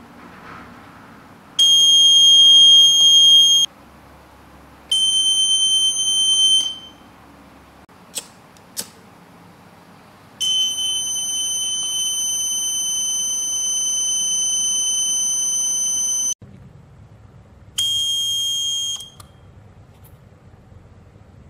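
Electronic buzzer alarm on a home-security sensor model, sounding a steady high-pitched tone in separate blasts: two of about two seconds, a long one of about six seconds, and a short one near the end. The blasts are set off first by water at the leak detector and then by a lighter flame held to the sensor. Two short clicks fall between the second and third blasts.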